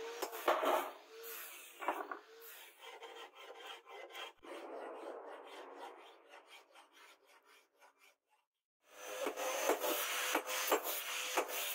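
A hand tool rasping across the steel of a forged cleaver blade in quick repeated strokes, breaking off briefly about eight seconds in.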